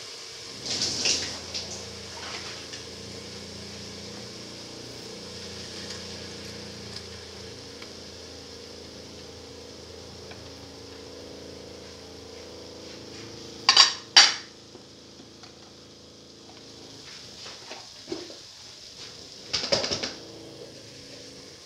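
Oil sizzling softly in a stainless steel pot under freshly added split pigeon peas, with a metal utensil clinking against the pot. Two sharp clinks come close together about two-thirds of the way through, with lighter clatters about a second in and near the end.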